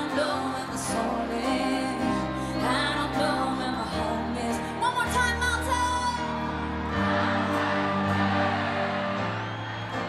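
Live pop band playing, with a woman singing the lead vocal into a handheld microphone.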